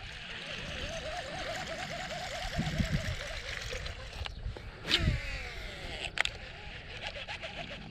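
A baitcasting rod and reel being worked with a topwater lure: a few sharp splashes on the surface about four to six seconds in, the loudest followed by a falling whir of the reel, over a steady outdoor hiss. A wavering tone sounds in the first few seconds.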